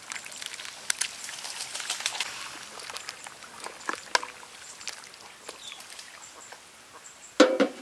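Chunks of raw buffalo meat slide off a steel tray and splash into a large pot of hot broth. A metal ladle then stirs the soup with a few clinks. A loud, ringing metal knock comes near the end.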